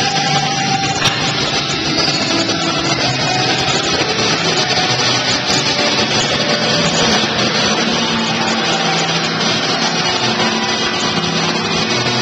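Flow wrapping machine running steadily: an even, continuous mechanical noise as its rollers and conveyor turn, wrapping single dates in film packs.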